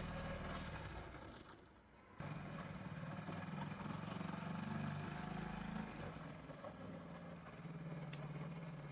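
Motorcycle engine idling steadily. It fades out about a second and a half in and comes back abruptly a moment later.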